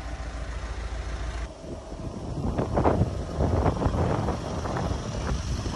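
Low rumble of wind buffeting a phone microphone. From about two seconds in come irregular crackling and rustling of footsteps through leaf litter and undergrowth.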